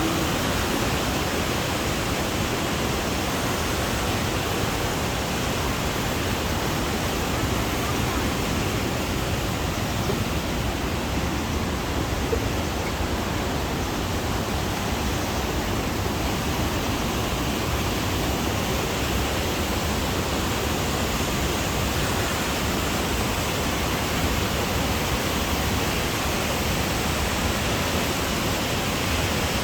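Gorge waterfall rushing steadily: a dense, unbroken wash of falling water that does not rise or fall.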